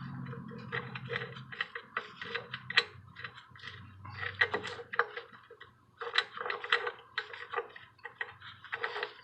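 Irregular metallic clicks and clinks of bench grinder parts and tools being handled during a stone change, some with a short ringing tone.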